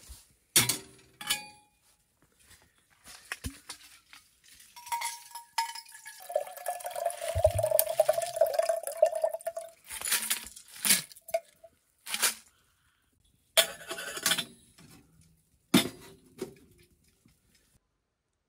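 A stainless-steel kettle is handled on a metal wood stove, giving sharp metallic clinks and knocks. In the middle, water is poured from a glass jar into the kettle for several seconds, with a steady ringing tone as it fills.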